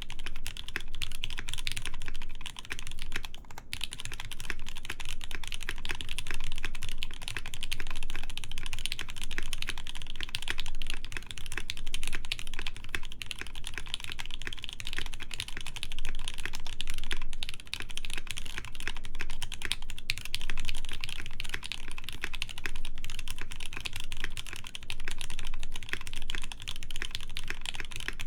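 Continuous fast typing on a Noxary T60 mechanical keyboard with lubed JWK Snow White linear switches, a polycarbonate plate and PBT keycaps: a dense stream of keystroke clacks.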